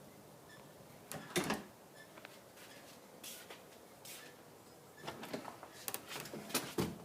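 Clicks, rattles and knocks of a door fitted with a door closer being worked: handle and latch hardware, with a sharp knock about a second and a half in and a burst of rattling ending in a firm knock near the end.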